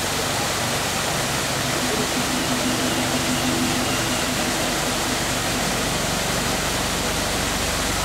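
Waterfall pouring into a pool: a steady, even rush of water. A faint low humming tone rises above it from about two seconds in and fades out before the halfway mark.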